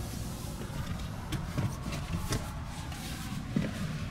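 A person climbing into the back seat of a two-door car: soft rustling and a few light knocks against the seat and trim, over a low steady rumble.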